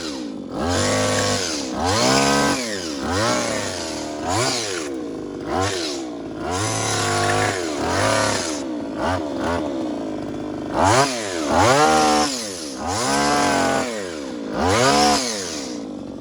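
Brush-cutter engine driving a hedge-trimmer attachment, revved up and let back down about a dozen times as the blades trim a hedge.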